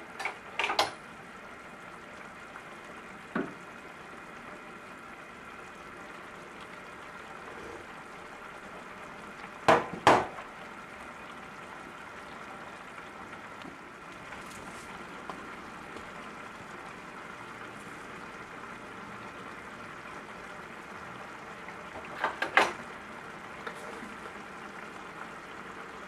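Minestrone soup simmering in a frying pan, a steady bubbling hiss. A few sharp knocks of utensils against the pan cut through it, mostly in quick pairs, the loudest about ten seconds in.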